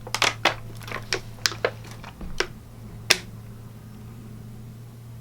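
A quick, irregular series of sharp clicks or taps, about ten in the first three seconds, the last one the loudest, over a steady low electrical hum.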